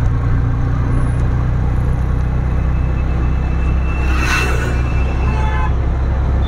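Auto-rickshaw engine running steadily with a low drone while the rickshaw drives along, heard from inside its open cabin. A brief hiss rises and fades about four seconds in.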